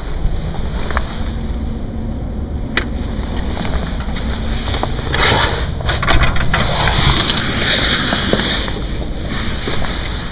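A constant, deep rumble from the sky, of unknown origin, strong enough to be felt as a vibration. A rushing hiss swells over it for a few seconds in the middle, with a couple of sharp clicks.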